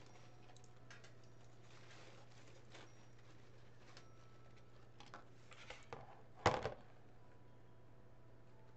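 Quiet handling noises of a deco mesh wreath and ribbon: light rustles and a few small clicks, then one louder thump a little past the middle as a roll of ribbon is set down on the cutting mat. A low steady hum runs underneath.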